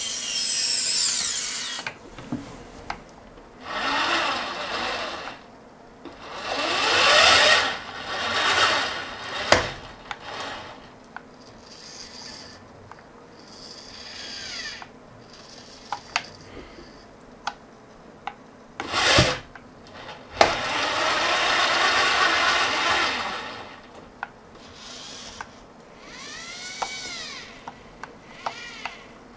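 The geared DC motors of a 3D-printed robot arm whine in repeated bursts of a few seconds as the joints move. Near the end a whine rises and falls in pitch as a motor speeds up and slows down. A few short clicks fall between the bursts.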